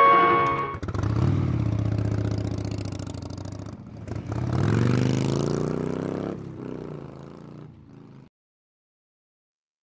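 Bajaj Pulsar motorcycle engine revving up twice as the bike pulls away, then fading into the distance until the sound cuts off suddenly.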